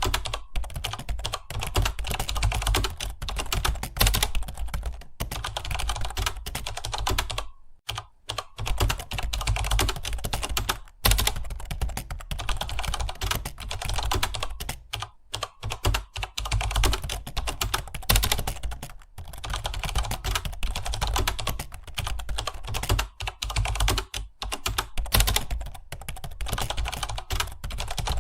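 Rapid, continuous typing on a computer keyboard: a fast stream of key clicks with a few short pauses.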